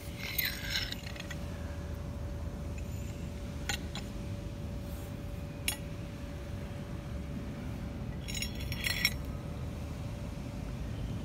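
Rusty steel C clamp handled on a concrete floor: two short bursts of light metallic clinking and rattling, one at the start and one about eight seconds in, with a few single small clicks between them. A steady low rumble and faint hum lie under it throughout.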